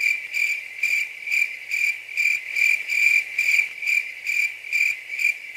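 Cricket chirping in an even rhythm, about four or five chirps a second, with all other sound cut away: a dubbed-in 'crickets' effect for an awkward silence.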